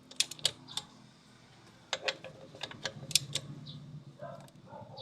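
Irregular sharp metallic clicks and taps from hand tools and parts, about a dozen strikes in small clusters, over a faint low hum; typical of bolting an EGR valve back onto a 2008 Nissan Navara's engine.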